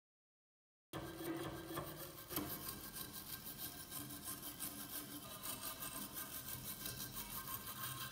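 Small steel wire brush scrubbing rust and grime off a rusty dagger's handle in quick back-and-forth strokes, several a second, starting about a second in.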